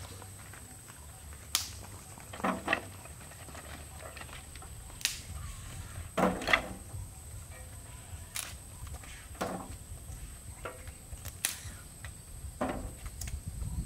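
Sticks of firewood knocking and clattering as they are laid into a metal drum stove. A sharp knock is followed about a second later by a short clatter, and the pair repeats roughly every three seconds.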